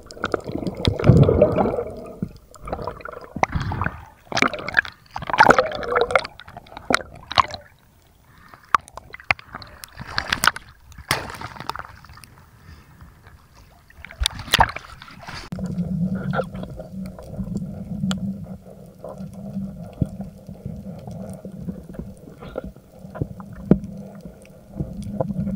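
Water gurgling and sloshing in irregular splashes, typical of a spearfisher swimming and diving at the surface. From about halfway a steady low hum joins in and runs on under scattered small clicks.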